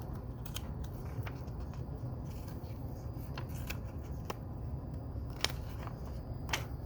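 Small plastic Lego pieces clicking and rattling as hands handle and search through them, with two sharper clicks near the end, over a steady low background hum.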